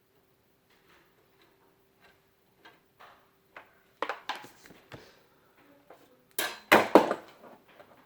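Light clicks and metallic clatter of a PC case's expansion-slot covers being worked loose and handled, building to a few loud metal clanks near the end.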